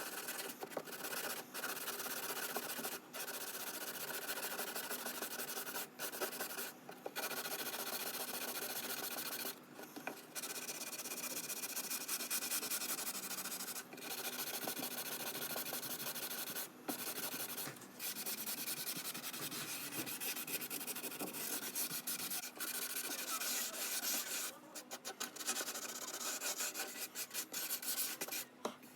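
Sanding on the wood of a classical guitar being restored: a steady abrasive rubbing, broken by brief pauses every few seconds, with a run of quick short strokes near the end.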